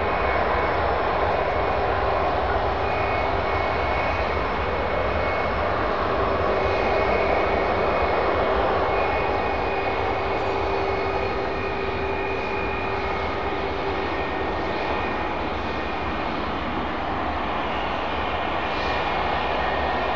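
Boeing 737-800 BBJ2's CFM56-7 turbofan engines running at taxi power as the jet rolls along the taxiway and onto the runway: a steady jet whine over a low rumble.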